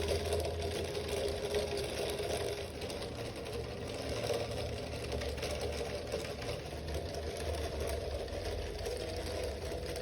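Model Stirling (hot-air) engine running steadily, with a fast, even mechanical clatter from its pistons, beam linkage and reduction gears.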